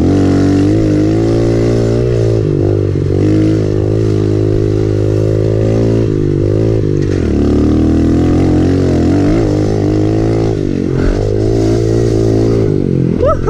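Dirt bike engine running hard along a rutted trail, its pitch rising and falling as the throttle is rolled on and off, with several brief dips.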